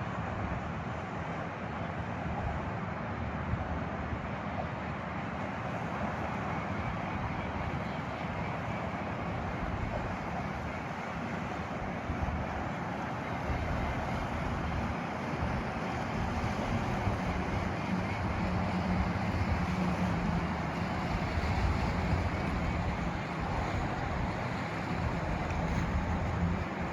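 Low rumble of a large ship's engine under wind buffeting the microphone, the rumble growing louder in the second half with a steady low hum.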